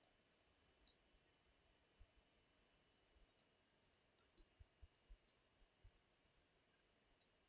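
Near silence with a handful of faint computer mouse clicks, several close together about four to six seconds in, as points are picked for a copy command in drawing software.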